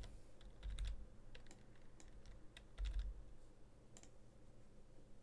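Computer keyboard typing: short runs of key clicks as a few digits are entered, with scattered mouse clicks and two dull thumps, about a second in and near three seconds.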